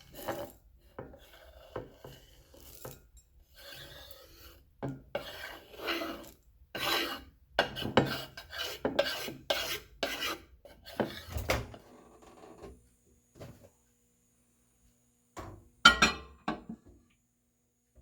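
Kitchen knife cutting and scraping on a cutting board in an uneven series of rasping strokes, with one sharp knock near the end.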